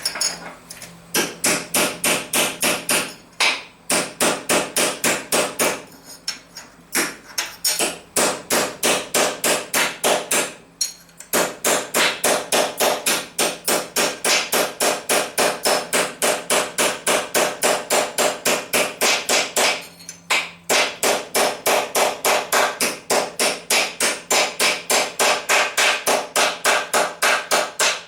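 A hammer striking metal in fast, evenly spaced blows, about four a second, in runs with a few short pauses, each blow ringing. It is hammering the end of a stainless steel canister closed before it is TIG welded shut.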